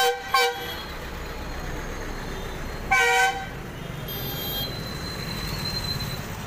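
Vehicle horns in busy street traffic: two quick toots at the start and a louder, longer honk about three seconds in. Under them runs the steady rumble of traffic, with a bus passing close by.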